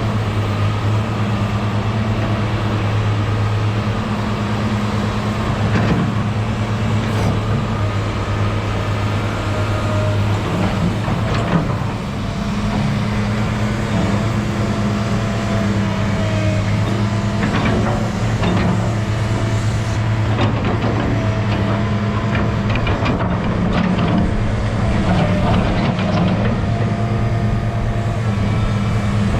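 New Holland E215 tracked excavator's diesel engine running steadily under the whine of its hydraulics, which rises and falls in pitch, with scattered metallic knocks and clanks, more of them in the second half.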